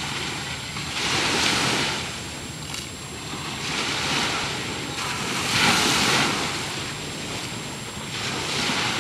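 Small ocean waves breaking and washing up on the beach, the surf rising and falling every couple of seconds, loudest about six seconds in.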